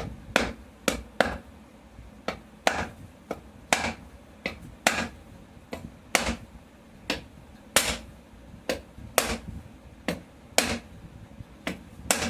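Repeated light hammer taps on a ceiling fan's aluminium body, about twenty sharp knocks at an uneven pace of one or two a second. The taps seat the side of the body that has not yet set evenly on the motor.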